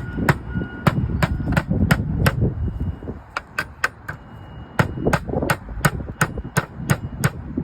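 Hammer tapping on a slate roof, driving in a slate hook to hold a replacement slate: quick, even taps about three a second, with a short pause a little before halfway.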